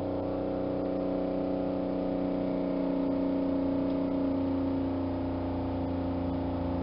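Electric motor of a pressure-testing unit running with a steady hum, pressurising the engine's cooling system, which has been filled with water and sealant, to check for leaks.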